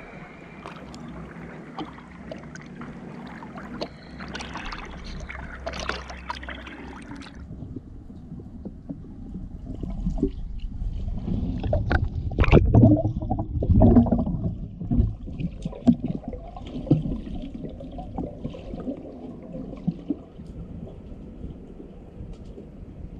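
Water sloshing and gurgling around snorkellers at the surface, muffled for much of the time as if heard from just under the water. About halfway through comes a run of loud irregular splashes from swim fins kicking at the surface.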